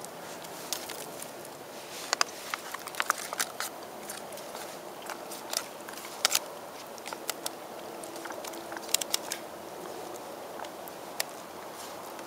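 Foil-laminate MRE pouch crinkling and a plastic spoon clicking against it as the chicken fajita filling is stirred. Scattered sharp crackles over a steady faint hiss, thinning out near the end.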